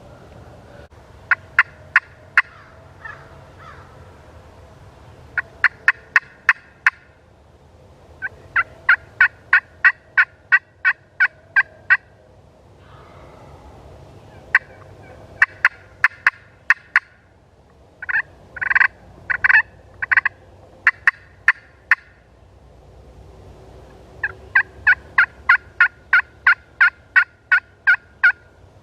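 Turkey yelping: several runs of loud, sharp, evenly spaced notes, about four to five a second, with short gaps between the runs.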